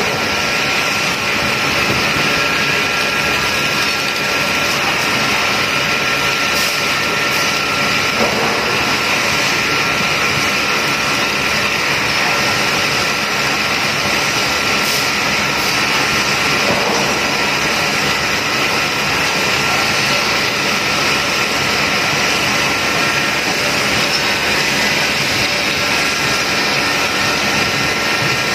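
Bridgeport CNC machining centre cutting under flood coolant: a steady mix of spindle and cutting noise with coolant spraying and splashing, and a steady high tone running through it.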